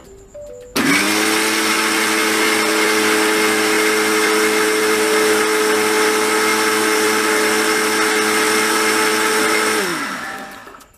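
Electric mixer grinder with a steel jar, switched on about a second in and running steadily at full speed, then winding down with a falling whine near the end, as it whips egg whites and oil into mayonnaise.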